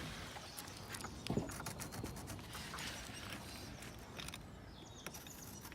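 Faint, scattered light knocks, taps and scrapes of hand work on a tiled roof, with a few sharper clicks in the first half.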